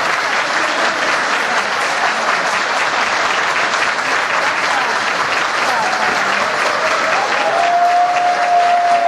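Audience applauding steadily, with one long held tone rising above the clapping from about seven and a half seconds in.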